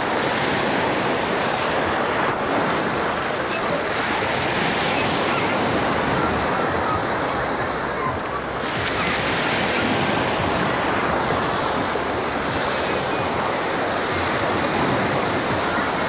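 Small surf waves breaking and washing up a sandy beach, a steady rush of water that swells every few seconds as each wave comes in.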